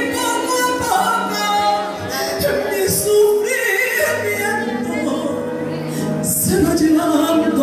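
A woman singing a copla live through a microphone and PA, holding long notes with vibrato over keyboard accompaniment.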